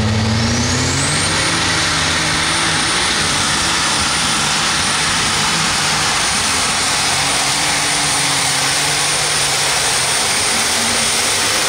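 Light super stock pulling tractor's turbocharged, alcohol-burning engine at full throttle on a pull. A high turbo whine rises over the first second and a half and then holds steady over the loud engine.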